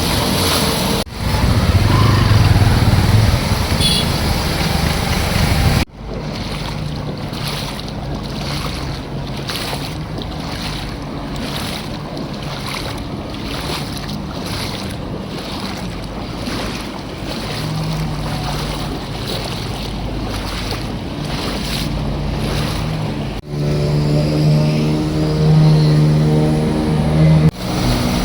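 Vehicle engines running and floodwater sloshing as traffic moves through a waterlogged road. The sound changes abruptly several times, with a rhythmic pulsing wash through the middle and a steadier engine hum near the end.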